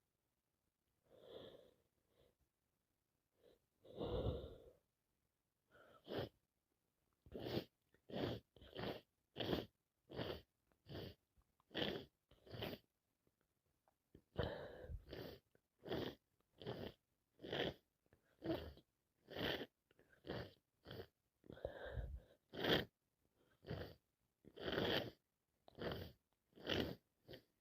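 A person with a heavy head cold in a long sneezing fit. A few separate sneezes and catching breaths come in the first seconds, then from about six seconds in a rapid run of short, sharp bursts, nearly two a second.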